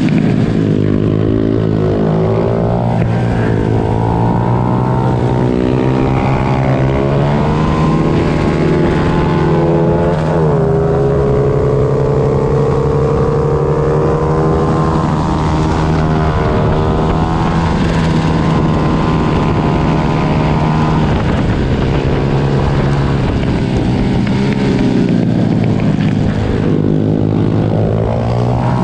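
Several small pit bike engines racing together, their pitches overlapping and rising and falling as the riders rev up, shift and back off.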